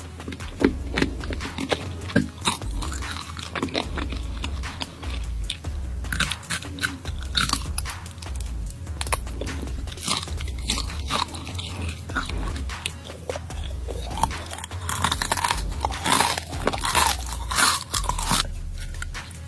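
Close-miked crunching and chewing of deep-fried tarantulas: many crisp bites, busiest near the end.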